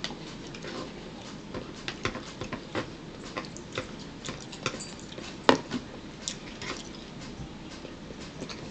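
Eating at a table: chewing and mouth sounds with scattered small clicks of cutlery against dishes, the loudest a sharp click about five and a half seconds in.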